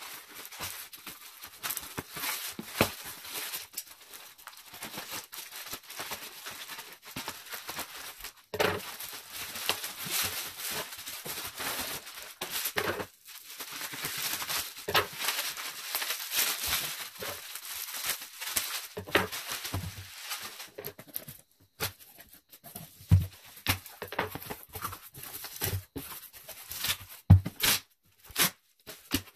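Plastic shipping wrap and bubble wrap being cut with scissors, torn and pulled off a parcel, crinkling and rustling steadily. For the last third the sound turns sparser, with knocks and scrapes as the corrugated cardboard box's flaps are pulled open.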